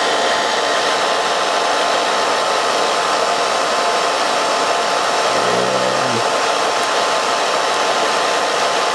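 Hair dryer running steadily on its low setting, blowing hot air onto clear packing tape to soften its adhesive.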